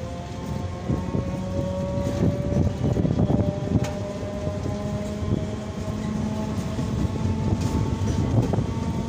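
Passenger train pulling out of a station and gathering speed: wheels rumbling and clacking over the rail joints, with a faint whine that rises slowly in pitch as it accelerates.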